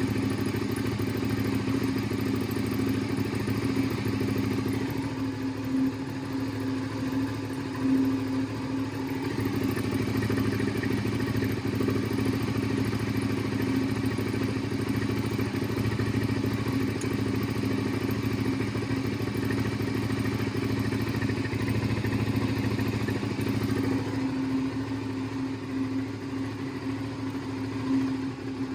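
Suzuki SV650's 645 cc V-twin engine running steadily at low revs.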